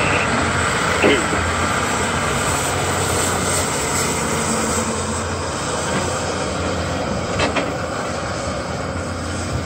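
Diesel engine of a tracked log loader carrying a Southstar 605 processor head, running steadily under work as the machine swings and lifts logs onto a log truck, with a couple of short knocks.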